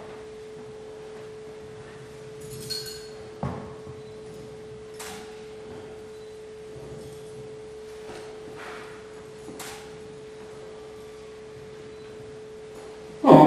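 A single steady pure tone, like a tuning fork's, from an iron instrument, held at one pitch without fading. A few faint clicks and light metallic taps sound over it, the clearest about three and a half seconds in.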